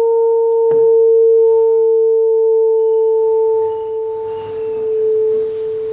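A singing pipe sounding one steady, pure tone with a fainter overtone an octave above it. There is a small click about a second in, and the tone grows weaker in the second half.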